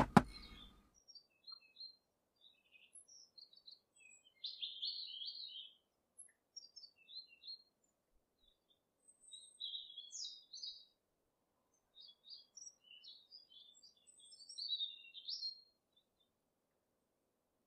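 Small birds chirping in short, scattered twittering phrases. Right at the start there is one sharp knock, a metal cake tin tapped down on the table to settle the batter.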